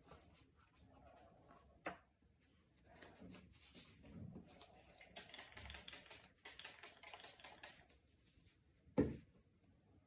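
Faint handling noises: a quick run of light clicks and rustles, with a sharp knock about two seconds in and a louder one near the end.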